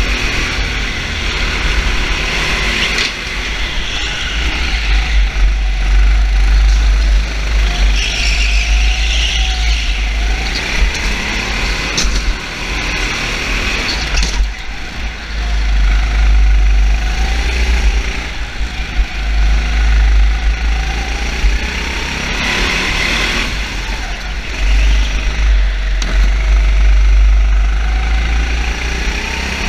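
Motor vehicle engines running, their pitch rising and falling as they rev, over a heavy low rumble. A few short sharp noises stand out along the way.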